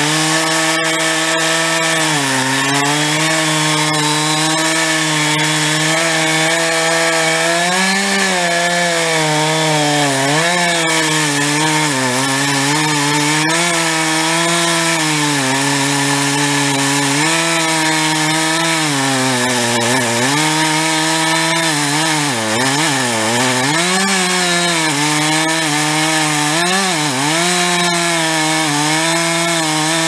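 Two-stroke chainsaw cutting into the trunk of a standing tree at high revs. The engine pitch dips over and over as the chain bites into the wood, then climbs back.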